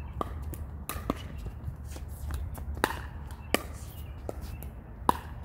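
Pickleball paddles hitting a hard plastic pickleball in a rally: a run of sharp pops about every half second to second, the loudest about three seconds in and near the end.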